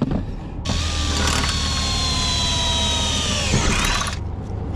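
Cordless drill boring through a van door's steel panel. The motor's whine starts about half a second in and sags slowly in pitch under load for about three and a half seconds, then cuts off abruptly shortly before the end.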